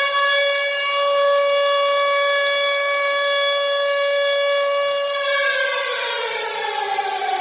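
Recorded hockey goal horn of the siren type, played from a goal-horn app: one loud, steady, siren-like tone that holds for about five seconds, then winds down in pitch.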